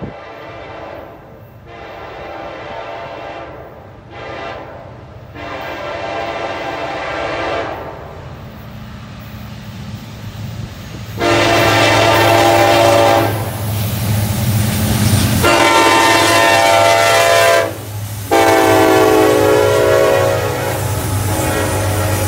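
Freight train diesel locomotive horn sounding a series of long blasts, distant at first, then much louder about eleven seconds in as the lead locomotive comes near. The locomotives' diesel engines run steadily as they pass, followed by freight cars rolling by on the rails.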